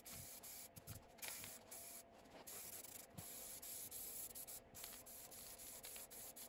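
Aerosol spray can of black paint hissing faintly in long passes over a wooden chest, with a few brief breaks where the nozzle is let go.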